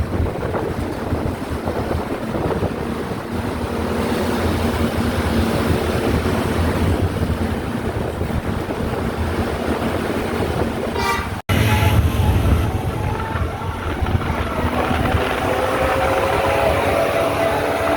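Vehicle and road noise for about eleven seconds, then after a sudden break a bus's telolet multi-tone horn sounding several steady tones together, rising slightly in pitch toward the end.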